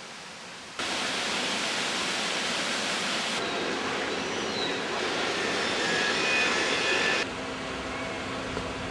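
Steady rushing background noise that changes abruptly twice, about three seconds in and again about seven seconds in.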